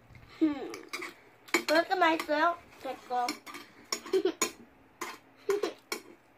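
Metal spoons and a fork clinking and scraping against a plate while food is scooped up and eaten, a scatter of sharp clicks.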